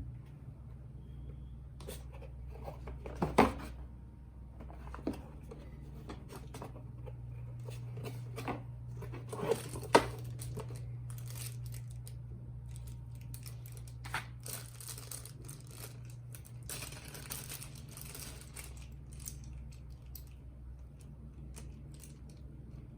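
Keyboard packaging being handled and opened: cardboard and plastic rustling and crinkling with scattered knocks and clicks, the two loudest about 3 and 10 seconds in, over a steady low hum.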